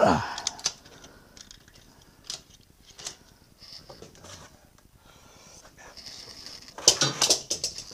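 Steel hand tools and locking-pliers clamps being handled at a milling machine table: scattered metal clicks and knocks, with a burst of clattering about seven seconds in.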